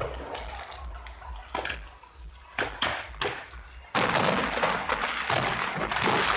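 Aerial fireworks: a fading crackle, a few separate sharp bangs, then a sudden dense burst of crackling with more bangs from about four seconds in.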